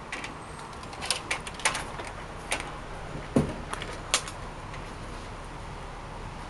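Handling noises at a sliding glass door: a few scattered clicks and knocks in the first four seconds, the loudest a low thump about three and a half seconds in.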